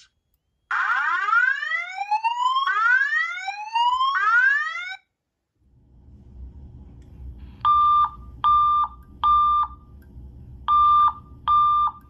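Fire alarm speaker/strobes sounding evacuation tones: three rising whoop sweeps, then after a short gap short beeps in two groups of three (the temporal-three fire alarm pattern), over a low hum.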